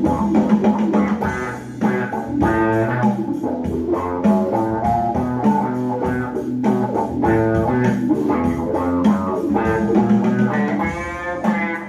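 Electric bass guitar played in a groove of quick plucked notes.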